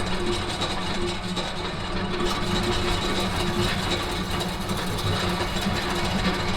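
An industrial gearbox running steadily under power, a continuous mechanical hum with a faint tone pulsing about twice a second.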